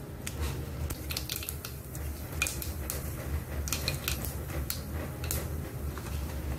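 Mustard seeds popping in hot oil in a small steel tempering pan, scattered sharp irregular pops over a low steady hum. The oil is hot enough for the seeds to splutter, the tempering (tadka) stage.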